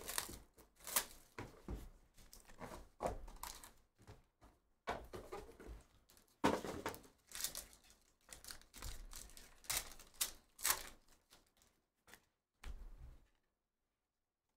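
A basketball card hobby box being opened and the card pack inside torn open: a run of sharp clicks, rips, crinkles and taps of cardboard and wrapper, with the cards set down on the table. It stops abruptly about a second before the end.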